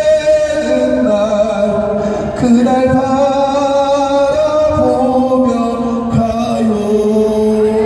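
A man singing a slow, hymn-like Korean worship song with rewritten patriotic lyrics, drawing out long held notes.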